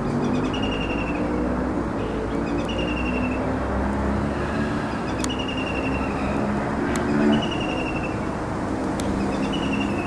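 White-throated kingfisher calling: a fast rattling trill of rapid high notes, repeated about every two seconds. Steady traffic noise runs underneath.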